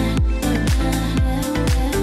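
Background music with a steady kick drum at about two beats a second, over held chords and light high percussion between the beats.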